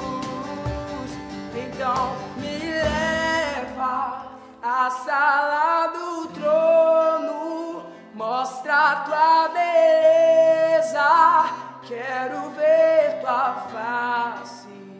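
A man singing long, sliding, wordless lines over a softly played acoustic guitar. A cajón knocks out a beat in the first few seconds, then drops out.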